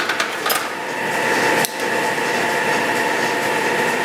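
Steady hum of an industrial sewing machine's motor running between seams, with a few light metallic clicks in the first half-second and a short break about a second and a half in.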